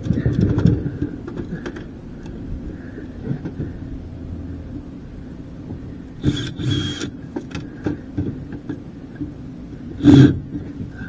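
Metal clanks and rattles of a dishwasher being pulled apart for scrap: a clatter at the start, another cluster about six seconds in, and the loudest knock near the end, over a steady low hum.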